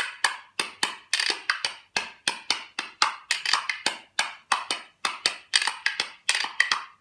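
A pair of maple-wood spoons played as a rhythm instrument, clacking in a quick, syncopated run of sharp clicks, several a second.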